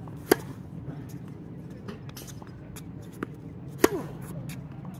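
Two sharp tennis-ball impacts about three and a half seconds apart, the second a forehand struck off the racket just after a softer bounce of the incoming ball. A steady low background noise runs underneath.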